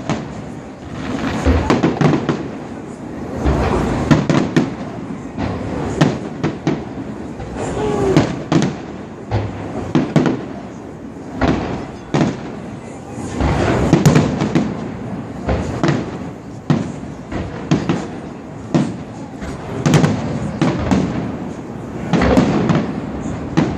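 Aerial fireworks going off in quick succession: sharp shell bursts and bangs, with crackling, often several a second and with only short gaps.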